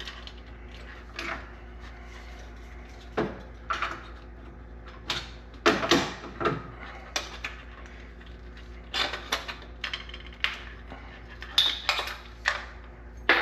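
Punching out a knockout on a thin pot-light junction box: a string of irregular sharp clicks, taps and clattery knocks, loudest around the middle and again near the end.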